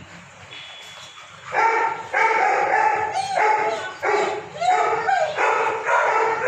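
Labrador retriever giving a run of high, drawn-out whining barks, about two a second, starting about a second and a half in.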